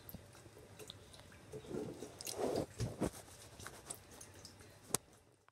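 A paintbrush pushing wet silk around in a glass jar of dye: soft irregular squishing with light clicks of the brush against the glass, and one sharp click near the end.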